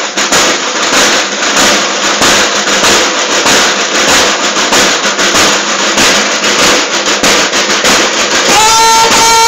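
Marching snare drums of a school drum-and-bugle corps playing rapid, dense drumming. Near the end a bugle comes in with a held note over the drums.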